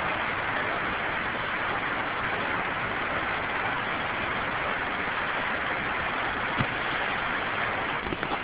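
Man-made park waterfall pouring steadily: an even rushing hiss.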